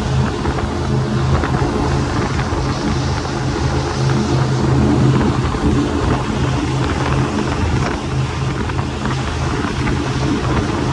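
The engines of a 1,000 hp 35-foot Fountain powerboat running hard at speed: a steady low drone, with wind and water rushing past.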